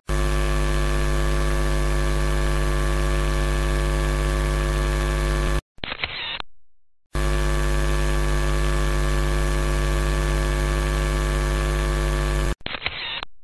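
Loud, steady electrical mains hum, broken off twice, about halfway through and near the end, by a photo booth's camera-shutter sound that dies away within about a second.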